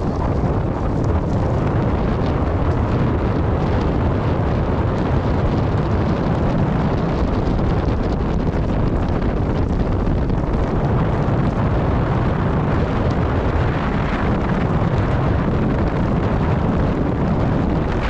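Wind buffeting the microphone of a camera on a moving bicycle: a steady, loud rumble from the rush of air while riding along a wet road.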